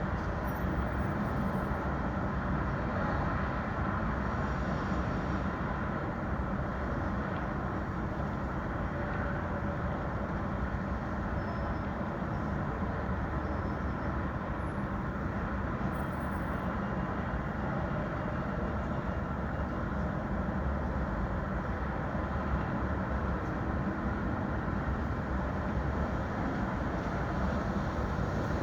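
City street ambience: a steady low rumble of traffic with no single event standing out, a few faint brief high-pitched squeaks or tones on top.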